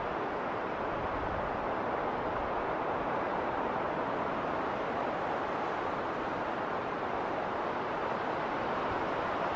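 Winter wind blowing through a snowstorm: a steady, even rush with no single gust standing out.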